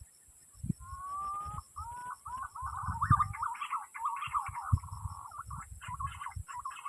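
Green pigeons (punai) calling, in wavering, warbling whistled phrases that start with two gliding notes and run on bubbling, over irregular low thumps and a steady high insect drone.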